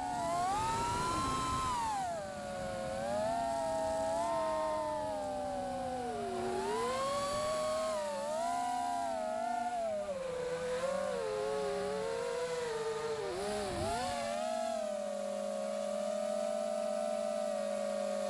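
Manta 5 SE V2 FPV quadcopter's motors and propellers whining, the pitch rising and falling with the throttle, then holding a steady pitch for the last few seconds.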